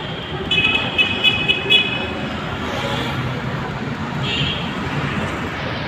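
Steady street traffic noise, with a vehicle horn tooting in a quick series of short beeps about half a second in and once more briefly a few seconds later.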